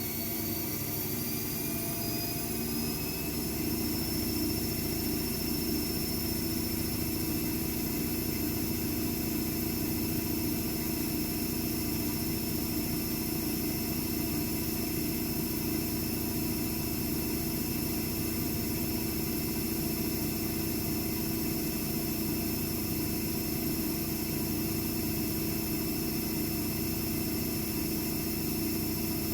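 AEG Lavamat W 1450 washing machine spinning a load of towels: its motor whine rises for the first few seconds as the drum speeds up, then holds steady over a continuous rumble at spin speed.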